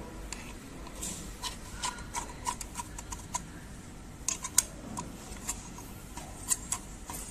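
Irregular small clicks and taps as hands handle the Nd:YAG laser's articulated guide arm, its clamp and cable, with a few sharper clicks about four and a half and six and a half seconds in.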